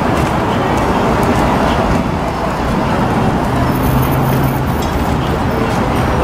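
Steady running noise of a moving bus, heard from on board: engine and road rumble with a rushing haze, and a steady low engine hum coming in about four seconds in.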